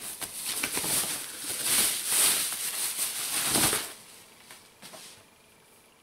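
Thin plastic bag rustling and crinkling in surges as a speaker is pulled out of it, stopping about four seconds in; then only a couple of faint ticks.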